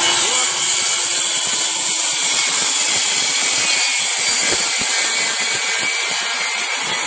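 Bosch 15-amp corded circular saw cutting through a couple of stacked masonite sheets at once, the blade set about an inch deep. A loud, steady cutting noise.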